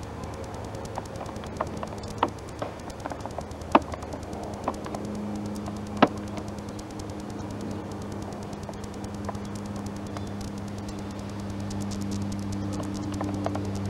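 Camcorder handling noise: scattered sharp clicks and rustles over a steady low hum, as a handheld camera is swung about. The two loudest clicks come about four and six seconds in.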